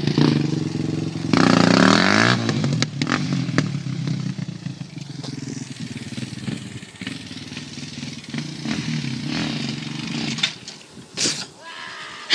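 Sport quad (ATV) engine revving hard while the front wheels are lifted in a wheelie, rising in pitch about a second in, then running more faintly as the quad rides away across the field. A brief rush of noise comes near the end.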